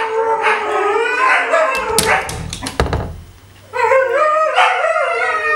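A pack of Tamaskan dogs howling together, several voices overlapping and gliding up and down with yips mixed in: an impatient group howl while waiting to be fed and let out for a run. A few sharp knocks about two seconds in, a short lull about three seconds in, then the howling starts again.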